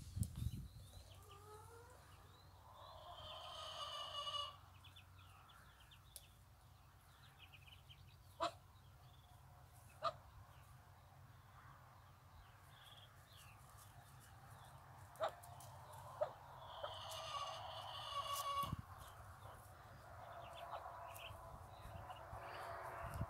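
Week-old Muscovy ducklings peeping faintly: many short high peeps, swelling into two louder spells about three seconds in and again near the end. Four short sharp clicks stand out in between.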